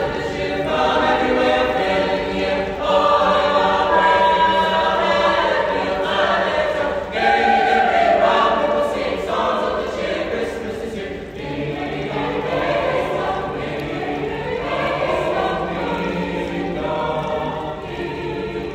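Middle-school choir singing a Christmas carol together, with long held notes, the voices echoing through a large atrium.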